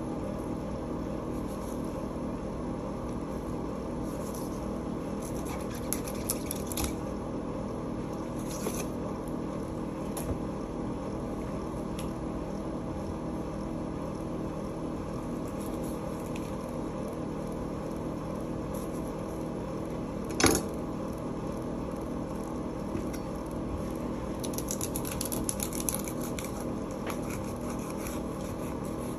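Knife cutting through a whole salmon on a wooden board: scattered short scrapes and crackles, and one sharp knock about two-thirds of the way through, over a steady machine hum.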